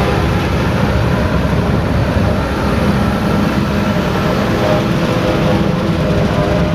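Heavy farm machinery's engine running steadily at a constant loud level, a low rumble with a steady hum over it.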